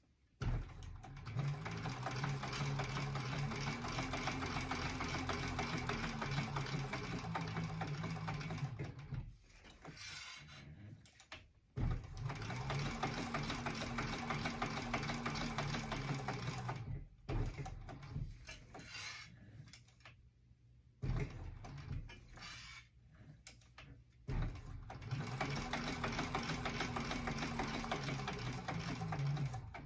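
Industrial sewing machine top-stitching a vinyl pouch in three long runs. Each run speeds up, runs steadily and slows to a stop. Between the runs are pauses with short bursts of stitching.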